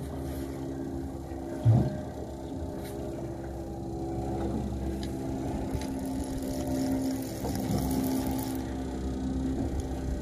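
Boat engine running steadily, with a single brief low thump a little under two seconds in.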